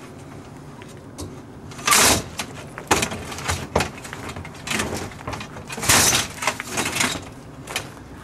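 Aluminium frame tubes of a collapsible counter sliding and knocking against each other, a string of short scrapes and clanks.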